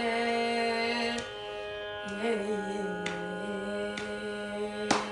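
A boy singing a Carnatic kriti in raga Suddha Saveri, holding long notes over a steady drone. A phrase ends about a second in and a new one starts after a short pause. Soft beats come about once a second.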